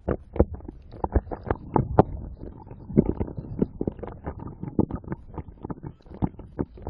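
Lake water slapping against the hull of a stand-up paddleboard under way, in quick irregular knocks and splashes over a low rumble.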